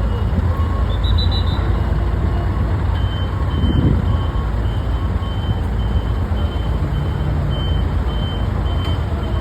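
Vehicle reversing alarms beeping over a steady, loud low engine rumble. A lower-pitched beeper sounds on and off in the first few seconds, and a higher-pitched one beeps about twice a second from about three seconds in.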